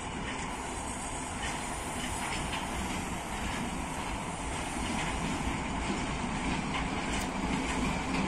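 ChME3 diesel shunting locomotive and its freight wagons rolling slowly past: a steady rumble of the engine and wheels, with a few faint clicks of wheels over rail joints, growing slightly louder.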